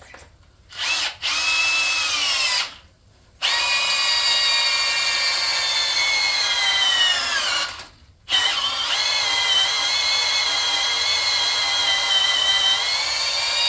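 Electric drill driving a drill into the Chevy LS V8's aluminium block to open out a stripped head bolt hole, run in three bursts with short stops between. The motor whine sags in pitch as the drill bites, the drilling going down to full depth.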